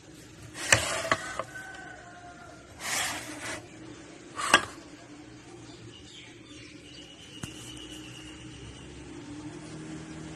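Crockery being handled on a table: a few sharp knocks about a second in and again at about four and a half seconds, with a short scraping rustle around three seconds. After that there is only faint background noise.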